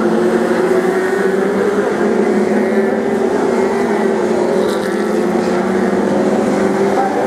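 A pack of BriSCA F2 stock cars racing round the oval, their engines running together in a steady, loud drone.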